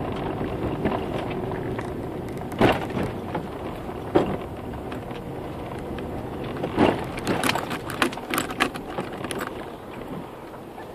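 Steady road and engine noise of a moving car heard from inside. Sharp knocks and clicks break through about a third of the way in and again in a cluster after the middle.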